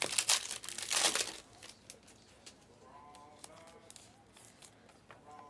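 Foil trading-card pack wrapper crinkling and tearing open, loudest in about the first second. Then quieter rustling and light clicks as the stack of cards is handled.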